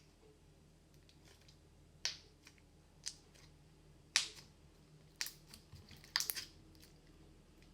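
Slime being squeezed and worked by hand, making a series of short, sharp pops and clicks about once a second, with a quick cluster of them near the end.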